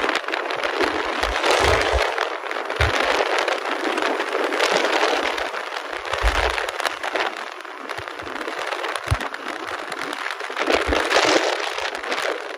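Wind and road noise from a car driving at speed, with gusts buffeting the microphone in short low thumps now and then.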